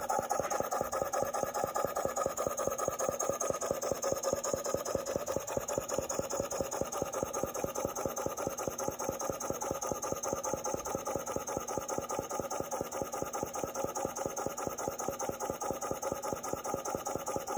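Model Corliss steam engine running at a steady speed, with a fast, even rhythm of exhaust beats and clicking from its valve gear.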